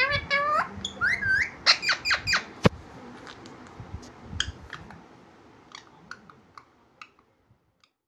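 Pet green parakeets calling: a quick run of gliding, pitched calls and short chirps over the first three seconds with a sharp click among them, then scattered short chirps that grow fainter.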